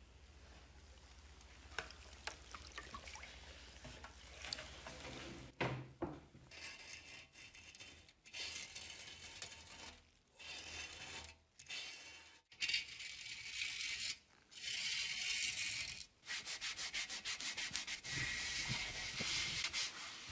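Abrasive rubbing by hand on a restoration part, as with sandpaper: faint handling clicks at first, then long hissing sanding passes with short pauses, turning to rapid short back-and-forth strokes near the end.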